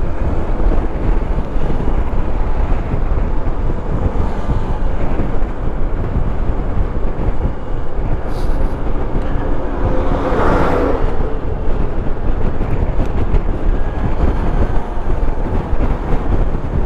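Wind rushing and buffeting over the microphone with a Honda ADV 160 scooter's engine running underneath, while riding at a steady road speed. About ten seconds in, a brief louder rush of noise swells and fades.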